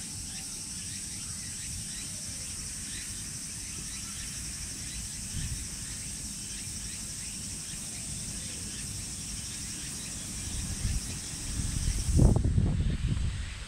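Steady high buzzing of insects under a low rumble of wind on the microphone. About twelve seconds in the buzzing cuts off suddenly as a louder low rumble swells.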